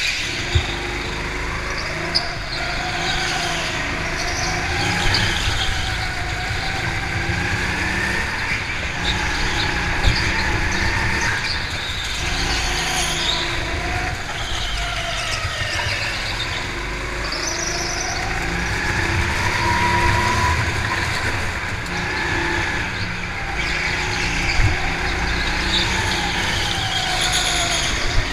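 Go-kart engine running on track, its pitch rising and falling over and over as the kart accelerates and slows through the corners, over a steady low rumble. A few sharp knocks and brief tyre squeals cut in.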